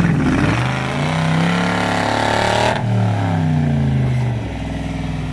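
Off-road vehicle's engine revving: the pitch climbs for about two seconds, drops off suddenly just under three seconds in, and winds down to a steady idle about a second and a half later.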